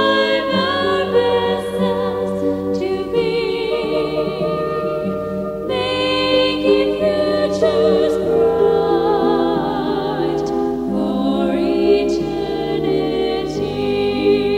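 A choir singing a sacred song with vibrato over sustained orchestral accompaniment.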